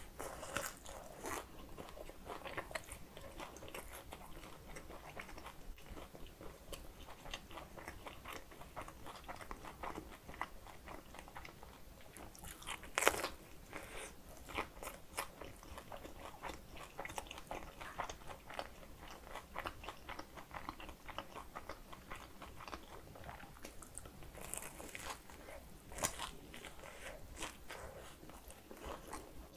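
A person biting into and chewing a dumpling with a browned, crisp skin: many small crunches and clicks of eating, with a sharper, louder crunch about 13 seconds in and another near the end.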